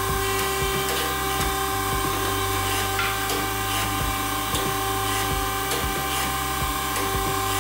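3G71 surface grinder's wheel cutting across hardened steel parallels under a coolant spray: a steady grinding hiss over the constant hum and whine of the machine's motor.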